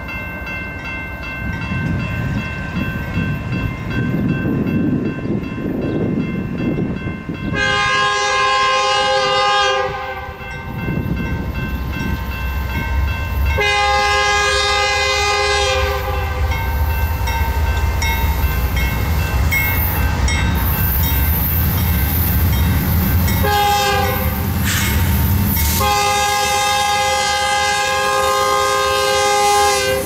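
Air horn of a BNSF C44-9W diesel locomotive sounding the grade-crossing signal: two long blasts, a short one, then a final long one, over a ringing crossing bell. The low rumble of the approaching diesel locomotives grows louder through the second half.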